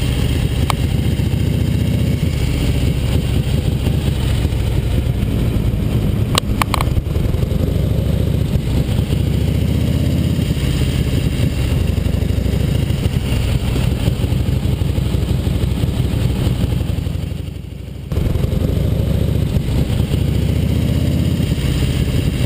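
1969 Harley-Davidson XLCH Sportster's magneto-fired V-twin running as the bike is ridden, with a few sharp clicks about six seconds in and a brief drop in loudness about seventeen seconds in.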